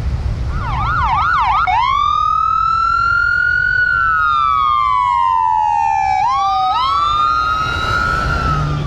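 Emergency-vehicle siren: a few quick yelping sweeps, then a slow wail that rises, falls over a couple of seconds and rises again near the end.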